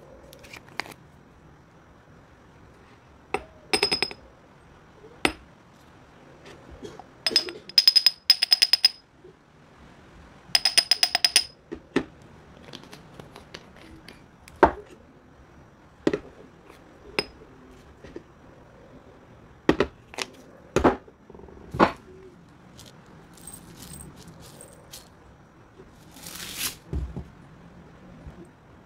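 A glass jar clinking and rattling as dry white crystals such as sugar or salt are shaken and poured into it: single sharp clinks, two quick rattling runs, and a short grainy hiss near the end.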